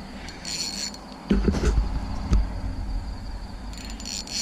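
Spinning reel being wound in short bursts, a ratcheting whirr twice, with low thumps from rod and reel handling while a barramundi is played on light line.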